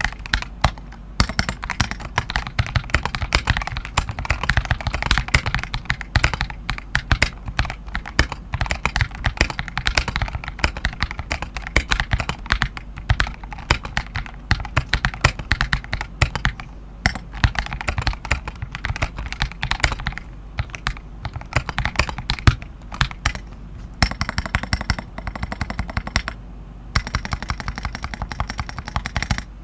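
Typing on an NK87 Entry Edition tenkeyless mechanical keyboard: a fast, steady stream of keystroke clacks, broken by a few brief pauses.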